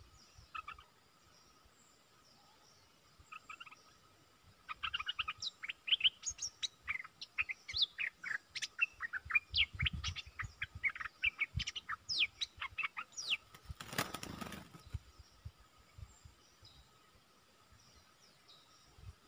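Bulbuls calling in quick chattering runs of short, sharply rising and falling notes: a caged decoy bulbul and a wild bulbul answering it. A brief rush of wing-flapping comes near the end.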